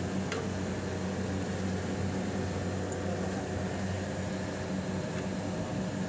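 Steady machinery hum with a low drone from a Carrier 30GT chiller unit that has been switched on, its second 06E compressor not yet started.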